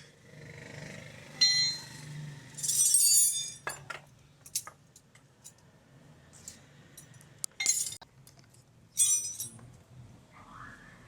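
Metal hand tools clinking and jangling. There is a sharp clink about a second and a half in, a longer ringing jangle around three seconds, and more clinks near eight and nine seconds.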